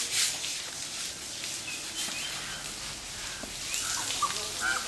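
Scattered bird chirps over quiet outdoor ambience, after one last scrubbing stroke on the elephant's hide at the very start.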